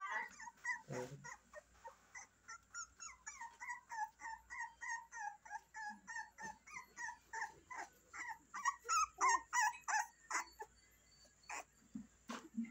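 Beagle puppy whimpering: a steady run of short high-pitched whines, about three a second, loudest around nine seconds in and stopping about ten seconds in. A short knock about a second in.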